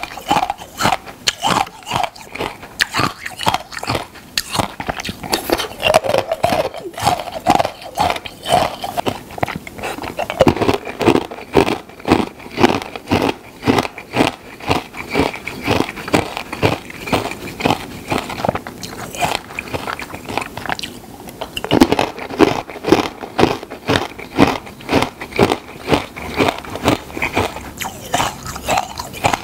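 Close-miked chewing of a hard, brittle food: crunching bites with crackling, loudest about twice a second throughout.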